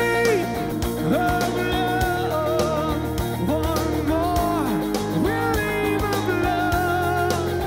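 A song with a singer holding long, wavering notes over guitar and a steady bass line.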